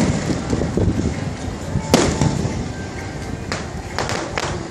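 Aerial fireworks shells bursting: the fading tail of a bang at the start, one loud bang about two seconds in, then three smaller reports in quick succession near the end.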